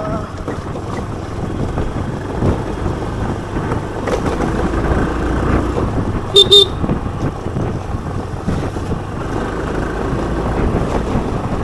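Motor scooter running steadily along a rough path, its engine and road noise constant, with a short double beep of the scooter's horn about six seconds in.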